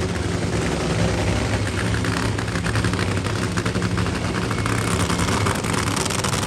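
Nitro-burning supercharged funny car engine running steadily, with a rapid pulsing firing and low steady tones.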